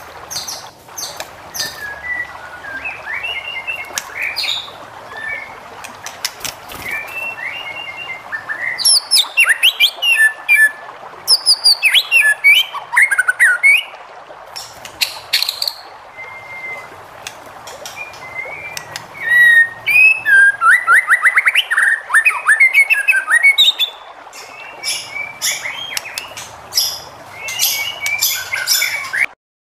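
White-rumped shama (murai batu) singing a varied song of clear whistled phrases, fast trills and sharp chattering notes, softer at first with two loud, rapid stretches in the middle. The song cuts off suddenly near the end.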